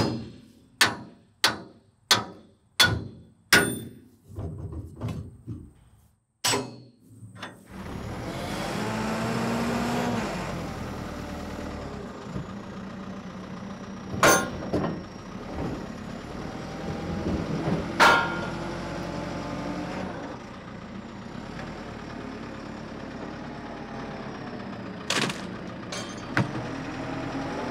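A run of sledgehammer blows on the steel log arch of a trailer, about one and a half a second for the first seven seconds, knocking it loose. Then a JCB telehandler's diesel engine runs as it lifts logs off the trailer, with a few sharp metal clanks.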